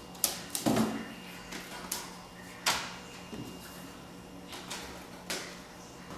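Picture frames being taken apart by hand: a series of sharp clicks and knocks from the frame backs and clips, about eight in all, including a duller thud a little under a second in.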